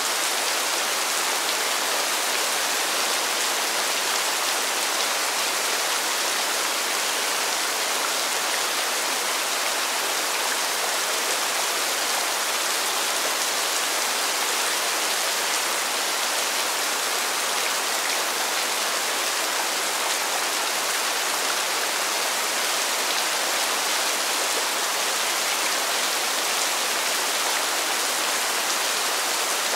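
Steady rain falling, an even hiss that does not change in strength.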